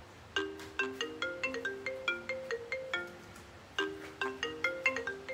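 Phone ringtone for an incoming video call: a short marimba-like melody of quick struck notes, which breaks off about three seconds in and starts over.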